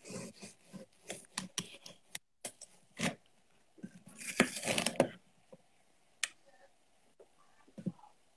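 Knife cutting an apple into wedges: scattered sharp knocks and short cutting strokes, with a denser run of cutting noise about four to five seconds in.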